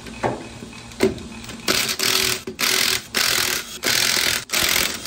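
Cordless impact wrench hammering on a wheel's lug nuts to loosen them, in four bursts a little under a second each, starting a couple of seconds in.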